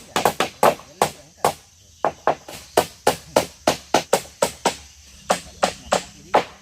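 Hammer driving steel nails into the meranti planks of a wooden boat: a fast, steady run of sharp strikes, about three a second, each with a short ring.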